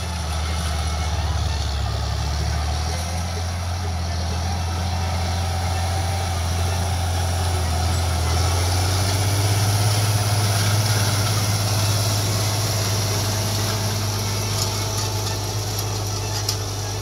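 John Deere 4320 tractor's turbocharged six-cylinder diesel engine running steadily under load, pulling a field plow through the soil. It grows louder and shifts in pitch as the tractor passes closest, about eight to ten seconds in, then fades slightly as it moves away.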